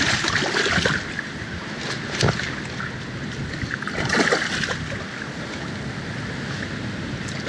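Steady rush of river water with wind noise on the microphone, and a few brief splashes, about two seconds in and again about four seconds in, as a hooked brown trout is brought to the landing net.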